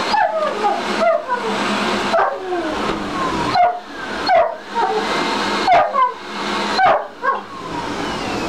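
German Shepherd whining and yipping at a running upright vacuum cleaner, short calls that slide down in pitch about once a second, over the vacuum's motor noise.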